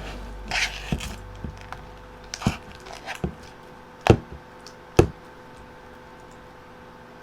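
Scattered taps and knocks from things being handled while slime is mixed, with two sharper, louder knocks about four and five seconds in, over a faint steady hum.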